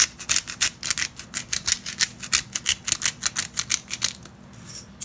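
Salt shaker being shaken over raw chicken thighs on a plate: a fast, even rattle of about six shakes a second, stopping about four seconds in.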